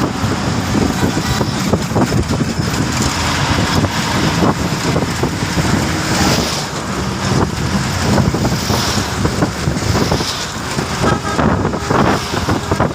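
Steady road-traffic and vehicle noise with wind buffeting the microphone.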